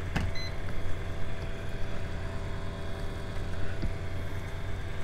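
Homemade pancake Bedini disc motor, neodymium magnets passing air-core coils, running steadily with a low, rapidly pulsing hum. A click sounds right at the start.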